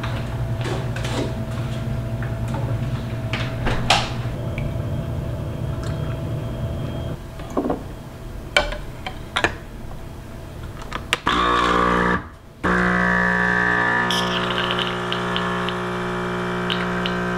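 Light kitchen handling clicks, then about eleven seconds in an illy Iperespresso capsule coffee machine starts its pump. It stops for a moment, then carries on with a steady hum as it brews.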